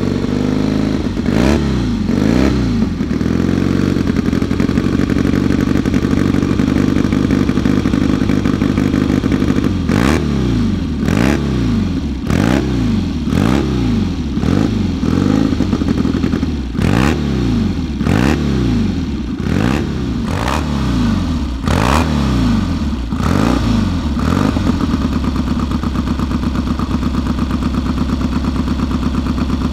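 Cotton Triumph classic scrambler's engine running, its throttle blipped twice near the start and then again and again, about once a second, through the middle. Each rev rises and drops back sharply, with the engine settling to a steady idle between runs and near the end.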